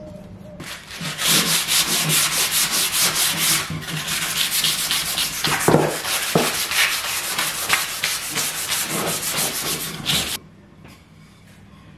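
Hand-sanding a cove-cut wooden moulding: rapid back-and-forth rasping strokes of abrasive on wood, stopping abruptly near the end.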